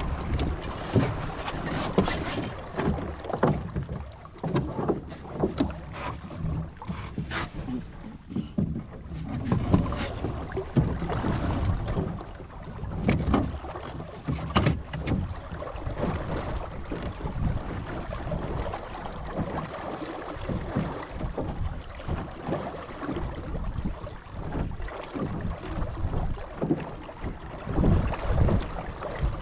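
Wind buffeting the microphone and water rushing along the hull of a 1985 Hobie Holder 14 under sail, a steady rumbling hiss. Scattered clicks and knocks come through at intervals.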